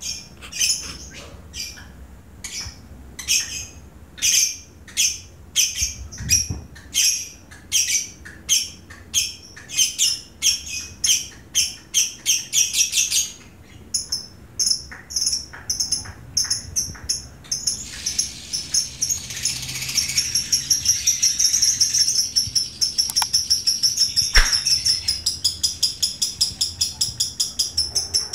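Caged lovebirds calling: a run of sharp, high chirps about two a second, then from about halfway a fast, unbroken high chatter, the long 'ngekek' song of a fighter lovebird. A single short knock comes near the end.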